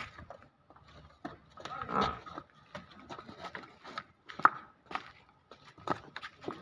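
Dairy buffalo's hooves knocking and scuffing irregularly on brick paving as it is led on a rope. There is a short, louder breath-like sound about two seconds in, and a sharp knock, the loudest, about four and a half seconds in.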